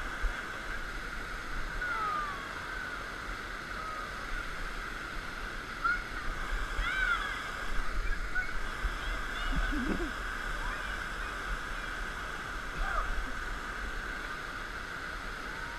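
Steady rush of whitewater rapids, with gusts of wind buffeting the microphone in low rumbles. A few faint, short cries rise and fall above the water.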